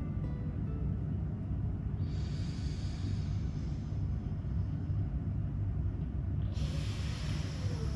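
Slow breathing through one nostril during alternate nostril breathing: two long airy breaths, about four seconds apart, over a steady low hum.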